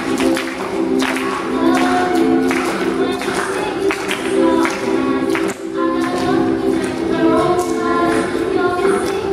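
Three female voices singing in harmony over a strummed ukulele, with regular strums under the held vocal notes.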